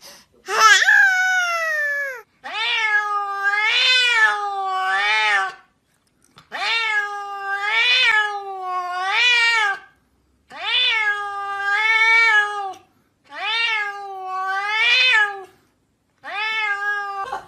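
Grey-and-white domestic cat meowing over and over. Its long, wavering meows run together in groups of two or three, with short breaks between the groups.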